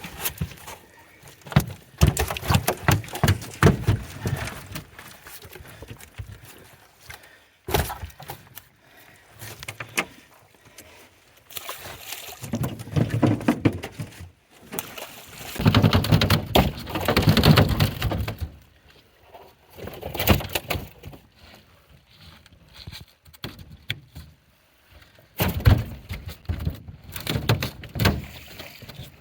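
Fish flopping and thumping in a boat as a hoop net full of buffalo fish and blue catfish is emptied: irregular knocks and thuds coming in bursts, with quieter spells between.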